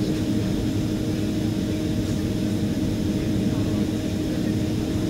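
Airliner cabin noise on the ground: a steady hum of the jet engines and cabin air system, carrying two steady tones, heard from inside the cabin.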